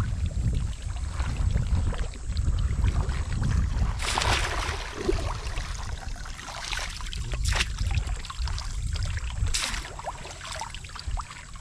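Shallow pond water sloshing and splashing as a woven bamboo basket is dipped and swept through it, with a few sharper splashes, the longest about four seconds in. Under it runs a steady low rumble of wind on the microphone.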